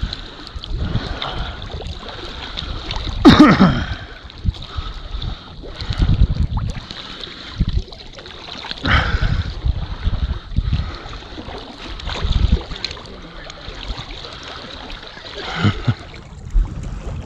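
Water splashing and lapping around a small hunting boat, with low rumbling from wind and scattered knocks. About three seconds in there is a brief loud sound that falls in pitch.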